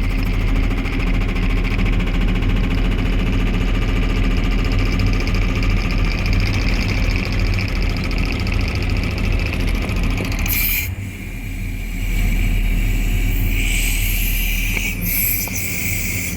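Hydraulic breaker on a JCB 3CX backhoe loader hammering concrete in a fast, even stream of blows, over the diesel engine held at about 1200 rpm. About ten seconds in, the hammering stops and the engine keeps running.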